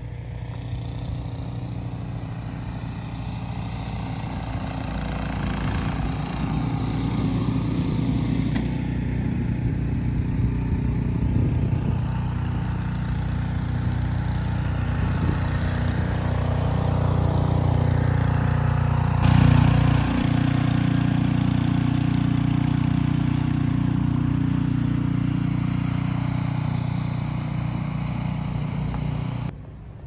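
An engine running steadily with a low hum, growing louder over the first half, with a brief louder surge about two-thirds of the way in; it cuts off suddenly just before the end.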